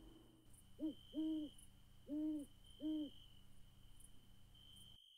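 Owl hooting four times, a short hoot followed by three longer ones, over a steady high trill; the sound cuts off near the end.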